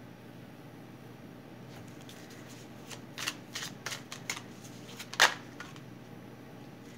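A tarot deck being shuffled by hand: a quick run of card flicks and taps starting about three seconds in, the loudest a sharp snap a little after five seconds.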